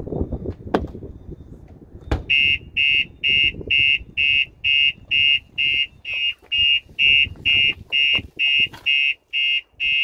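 Starline van alarm siren on a 2021 VW Crafter, set off by a knock on the body: the shock sensor has tripped, and the siren sounds in fast, evenly repeated beeps, about three a second. A sharp thump comes about two seconds in, just before the beeping starts, with lighter handling thumps before it.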